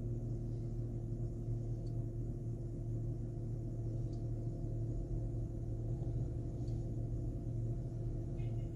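Steady low hum inside a car, holding a few even tones, with faint light ticks about every two seconds.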